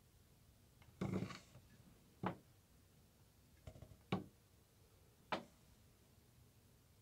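Light knocks and clicks of small hard objects handled on a tabletop: a short clatter about a second in, then three sharp single taps a second or so apart.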